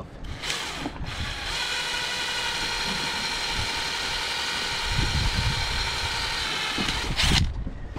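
Ryobi power drill running steadily at one speed as it bores through a short piece of plastic pipe, with an even motor whine. It stops shortly before the end.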